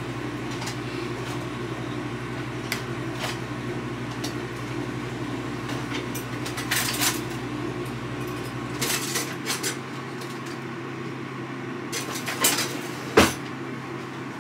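Kitchen clatter of pots, dishes and utensils: scattered clinks and knocks, with one sharp knock near the end, over a steady low hum whose deepest part cuts off about nine seconds in.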